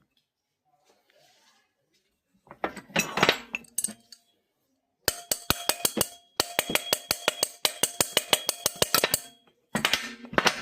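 Metallic clinking and clatter: two short bursts, then about four seconds of sharp, evenly spaced clicks at roughly eight a second with a faint ringing tone, and another short burst near the end.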